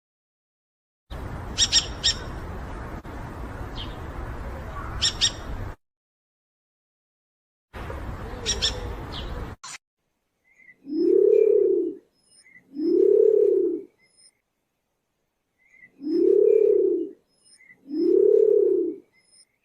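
Bird calls. First come a few sharp, high calls over background noise, broken by abrupt cuts. In the second half come four long hooting notes, each rising and then falling, in two pairs.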